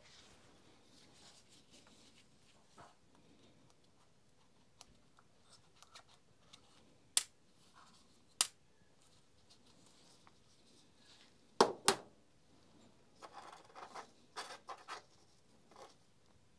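Small impact-driver parts being worked with a steel pick on a metal tray: a few sharp clicks, with a close pair about two thirds of the way in, then a short run of light scratching and rustling.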